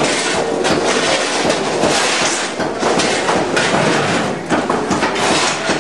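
Interior wall being demolished by hand: a dense, continuous clatter and crumble of breaking wall material and falling debris, with many knocks.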